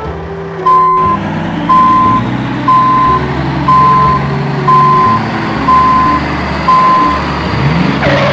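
Truck reversing alarm beeping seven times, about once a second, each beep about half a second long, over background music.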